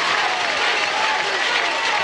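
High school football crowd in the stands: many voices shouting and cheering over one another in a steady din.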